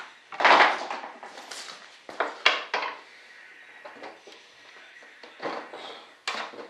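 Clinks and knocks of hand tools and small parts being handled while fitting an RC jet model's landing gear, in irregular strokes: a louder rattle about half a second in, three quick knocks around two seconds in, and two more near the end.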